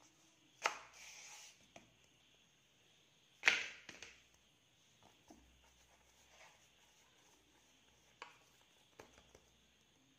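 Two sharp slaps, one under a second in and a louder one about three and a half seconds in, then a few faint taps: paratha dough and a flat hand hitting a rolling board.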